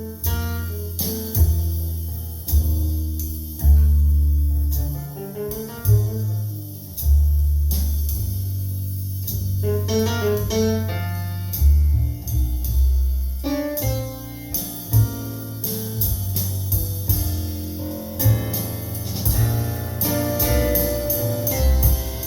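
Jazz played back through Definitive Technology Mythos ST loudspeakers: a piano line over deep, full bass notes, with cymbal hits from a drum kit.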